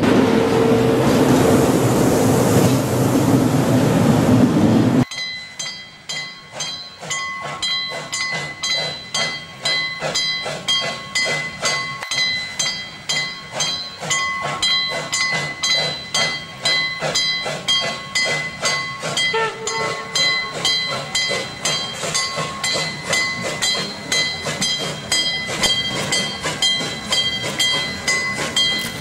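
A railway coach rolling past close by, wheels rumbling and clattering, for about five seconds; then a small Prussian T3 steam tank locomotive working towards the listener, its exhaust puffing in an even rhythm, with a steady high tone underneath.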